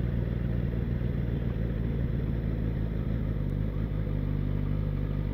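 Suzuki GSX-S1000's inline-four engine running at a steady low pitch as the motorcycle is ridden, with a slight change in the engine note about four seconds in.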